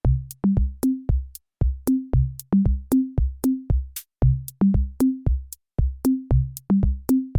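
Background music: an electronic drum-machine beat of deep kick thuds and short pitched drum hits, cutting in abruptly out of silence.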